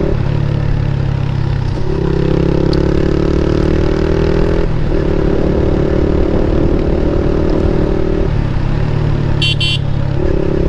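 Motorcycle with an aftermarket Akrapovic exhaust running at steady revs while riding. The engine note holds level for a few seconds at a time, with short breaks about two, five and eight seconds in. A brief high-pitched beep comes near the end.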